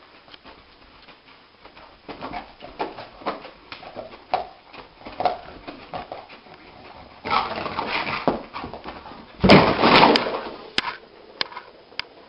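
A dog whimpering and yipping, with scattered knocks and scuffling, and two louder noisy stretches about seven and nine and a half seconds in.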